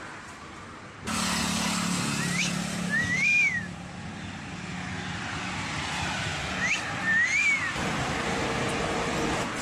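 Two wolf whistles about four seconds apart, each a quick upward whistle followed by one that rises and falls, over steady road traffic, with a vehicle engine humming through the first half.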